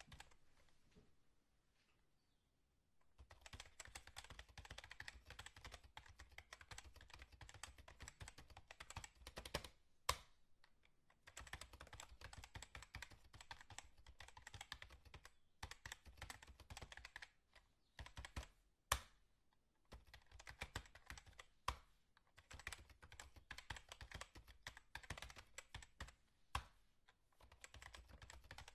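Quiet, rapid typing on a computer keyboard: after about three seconds of near silence, dense runs of key clicks come in bursts with short pauses, and a few single key strikes stand out louder.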